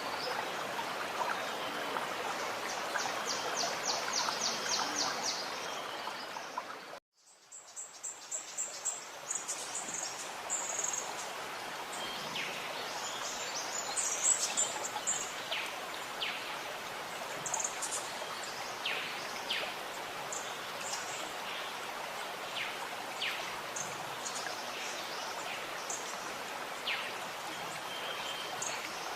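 Running, gurgling stream with birds singing; a rapid bird trill a few seconds in. About seven seconds in the sound cuts out briefly, then comes back as softer running water under many short high bird chirps.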